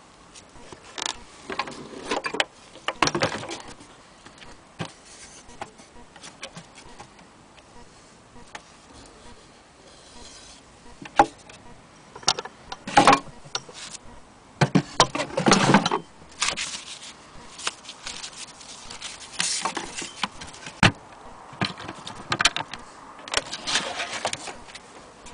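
Handling noise: irregular knocks, scrapes and rustles in scattered bursts, the loudest about halfway through.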